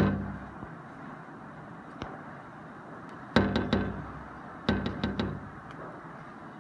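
Sharp knocks in quick runs: a single loud one at the start, a faint one about two seconds in, then a rapid run of about five knocks about three and a half seconds in and another run of about four a second later.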